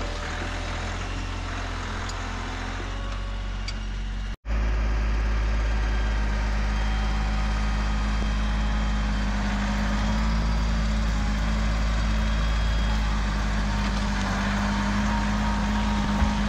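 Tractor engine running steadily. About four seconds in the sound cuts out for an instant and comes back louder.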